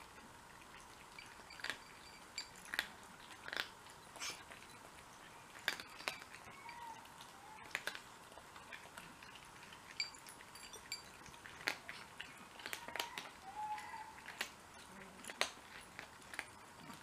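Several cats eating dry kibble from ceramic bowls: irregular crunching and chewing, with sharp clicks scattered through.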